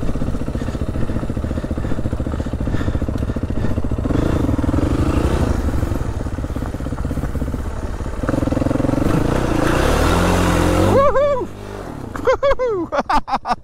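Adventure motorcycle engine running steadily under way, then revving up about eight seconds in as the bike accelerates. Near the end the engine note drops off suddenly, and a run of quick rising-and-falling tones follows.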